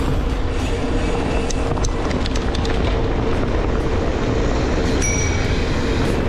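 Steady rumble of city traffic and road noise heard from a moving bicycle, with a cluster of light clicks around two seconds in and a brief high tone about five seconds in.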